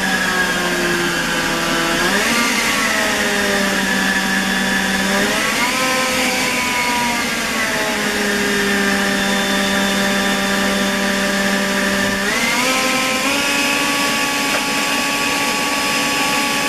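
Atlas 80V brushless cordless leaf blower running with a steady whine, its motor speed stepping up and down several times as the speed setting is changed, rising twice in quick succession near the end.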